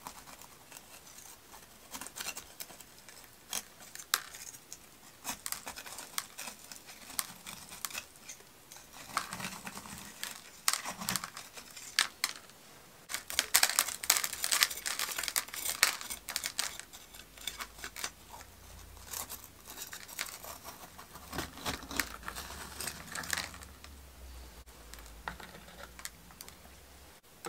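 A knife scraping around the inside wall of a small glazed ceramic pot and through gritty granular soil and roots to loosen a spider plant's root ball: irregular scratching, crunching and small clicks, busiest about halfway through.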